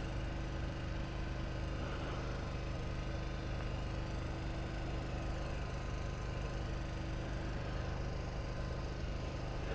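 Steady low hum and hiss with no distinct events.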